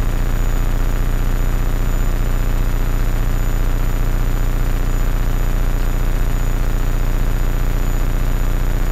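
Hummingbird helicopter in cruise flight, its rotor and engine making a steady low drone with constant hiss as heard in the cockpit.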